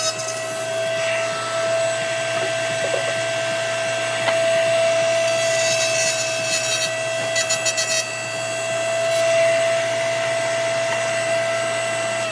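Table-mounted router running at a steady speed, with dust collection on, as a zebrawood box side is fed along the fence past the bit to cut a hinge mortise.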